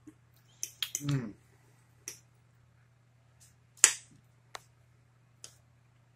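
Eating at a plate: a handful of sharp, separate clicks and clinks of a fork against the plate, the loudest a little before the middle. A short vocal sound comes about a second in, and a faint steady hum runs underneath.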